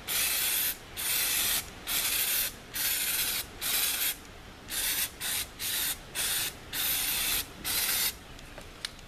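Aerosol can of undercoating spraying in short hissing bursts, about a dozen of them, each under a second long, stopping about eight seconds in.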